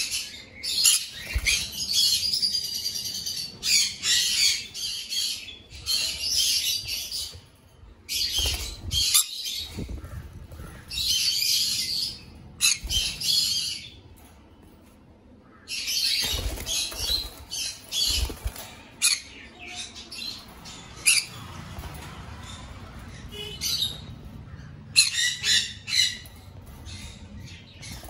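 Pineapple conures (green-cheeked conure colour mutation) squawking in harsh, high-pitched bursts, with wing flapping.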